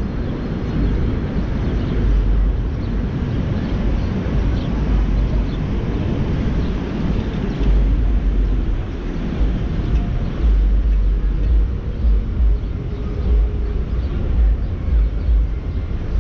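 Road noise of a car driving in city traffic: a steady low rumble that swells and dips, stronger in the second half.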